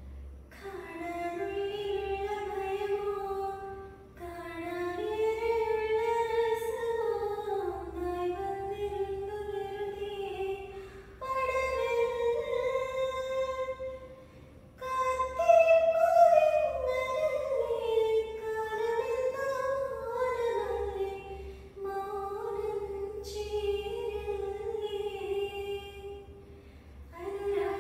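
A woman singing solo without accompaniment, in long held melodic phrases with short breaks between them.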